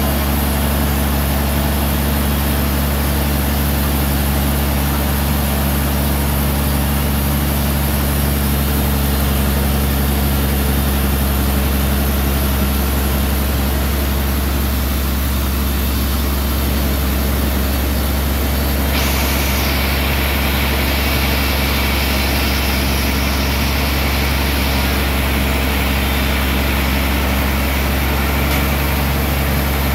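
Large band sawmill running with a steady, deep drone from its drive. About two-thirds of the way through, a higher noise suddenly joins it.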